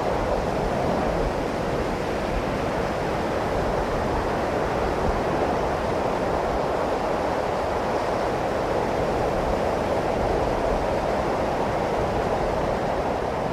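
Steady rushing noise, like wind or surf, forming the ambient intro of a heavy metal music video before the band comes in.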